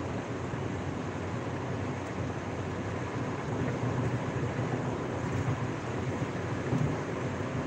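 Steady road noise inside a car's cabin at freeway speed, a low, even rumble of tyres and engine with wind.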